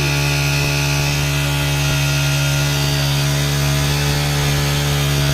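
Small petrol lawn mower engine running at a steady speed.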